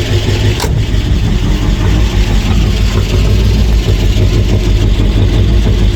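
1958 Oldsmobile 88's V8 running steadily on its first startup after sitting for years as a barn find, with a single click about half a second in.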